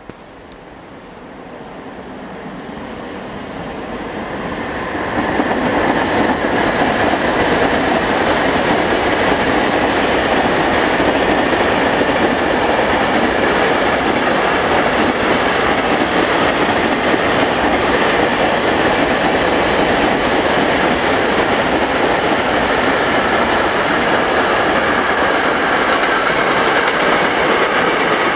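Freight train of covered hopper wagons passing, wheels running on the rails. The noise grows over the first five seconds as the train approaches, then holds steady and loud as the wagons roll by.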